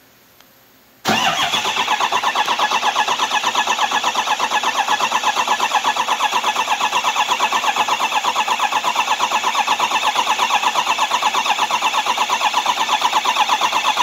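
2005 Ford 6.0 Power Stroke V8 turbo diesel cranking on its starter, starting abruptly about a second in, with a fast, even pulse that does not speed up. The engine never catches: a crank, no-start condition.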